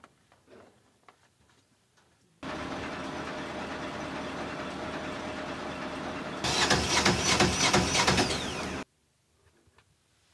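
Military truck engine running, heard close: a steady noise that begins abruptly about two and a half seconds in, turns louder with rapid clattering about six seconds in, and stops abruptly.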